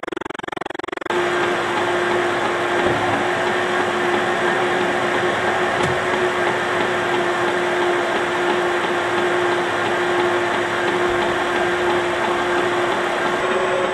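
Metal lathe running with its spindle turning during single-point threading passes on a 1/4-20 thread: a loud steady whir with one constant hum, which jumps louder about a second in.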